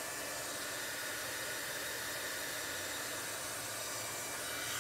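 Handheld dryer blowing steadily with a faint motor hum, drying wet chalk paste on a fabric banner.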